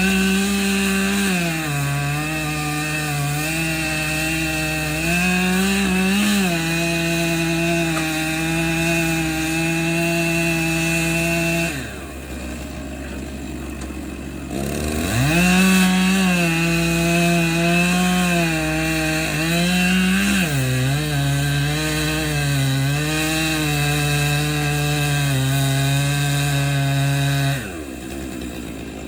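Large two-stroke chainsaw cutting through an oak trunk at full throttle, its engine pitch sagging and recovering as the chain bites into the wood. It eases back to idle for a few seconds about twelve seconds in, revs up and cuts again, and drops back to idle near the end.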